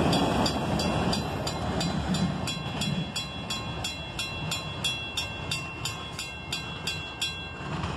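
Freight train boxcars rolling past and away, their wheel rumble fading. A railroad crossing bell dings evenly about three to four times a second and stops shortly before the end.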